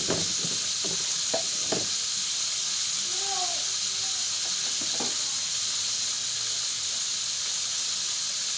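Hot oil sizzling steadily in a frying pan. A few sharp knocks of utensils come in the first two seconds.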